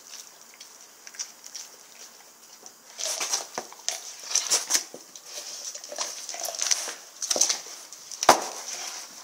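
A Rottweiler chewing and tearing at a raw lamb shank: wet crunching and clicking, faint for the first three seconds and then louder, with one sharp knock near the end.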